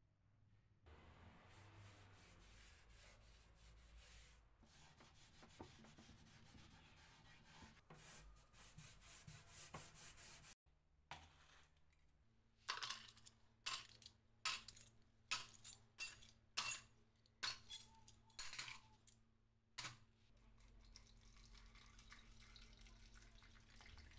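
Rusty small metal fittings dropped one at a time into a plastic cup, about a dozen sharp clinks over some seven seconds. Then rust remover is poured from a jug over them with a steady pouring hiss. The first part holds only a quiet steady hiss.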